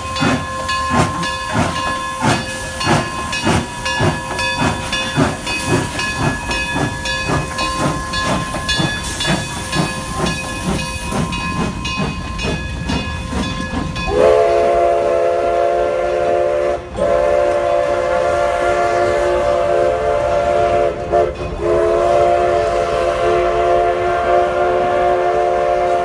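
Narrow-gauge steam locomotive No. 482, a K-36 2-8-2, pulling away with a fast, even run of exhaust chuffs over a steady hiss of steam. About halfway through its chime steam whistle sounds, three long blasts with short breaks between them, the last still sounding at the end.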